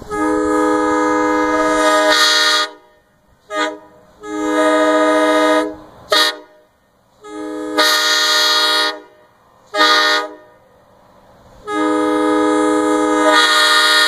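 Homemade PVC replica of a Nathan K5LA train horn, blown by compressed air, sounding a chord of several steady tones. It gives four long blasts of about one and a half to three seconds each, with three short toots between them.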